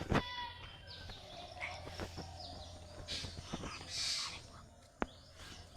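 Birds calling outdoors, with a harsh call near the start, two short hissing noises later on and a few sharp clicks.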